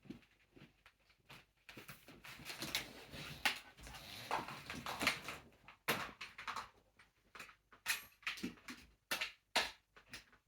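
Handling noises from a Dyson DC07 upright vacuum cleaner being readied for use: irregular clicks, knocks and rustles, with no motor running yet.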